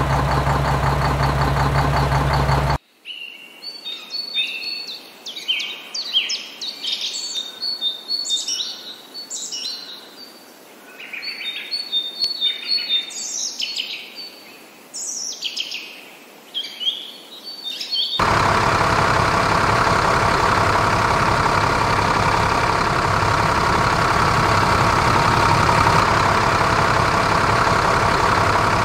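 A loud steady engine-like drone, cut off abruptly about three seconds in by birds chirping, many short repeated calls for about fifteen seconds. The steady engine-like drone then comes back just as abruptly and runs on.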